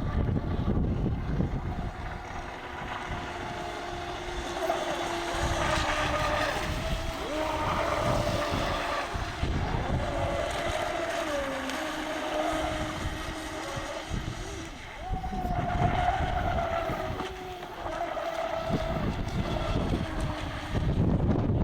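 Electric radio-controlled model boat's motor whining on the water, its pitch stepping up and down as the throttle is worked, with wind buffeting the microphone.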